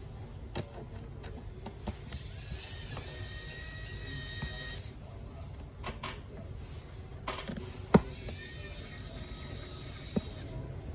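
Screwdriver working the tiny bottom-case screws of a MacBook Pro: two spells of high-pitched whirring lasting about three seconds each, with scattered clicks and one sharp click about eight seconds in.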